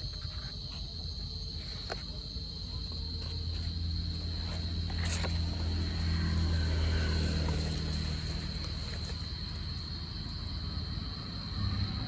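Cricket trilling steadily on one high pitch. A low droning rumble swells through the middle and fades again.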